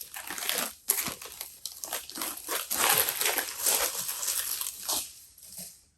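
Packing wrap crinkling and rustling as it is unwrapped from an old folding camera, a busy run of crackles and small clicks that dies away about five seconds in.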